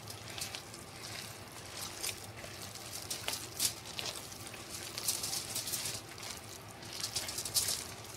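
Raw minced chicken mixture with breadcrumbs and spices being squeezed and kneaded by hand in a plastic bowl: irregular wet squishing and crackling, thickest a few times along the way.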